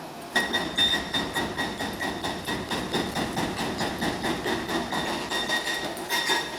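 Demolition excavator clanking and rattling: rapid metallic knocks with a steady high-pitched ring over them, starting suddenly and stopping just before the end.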